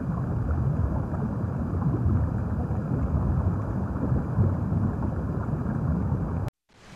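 Underwater ambience sound effect: a steady, muffled low wash of water noise, which cuts off suddenly near the end.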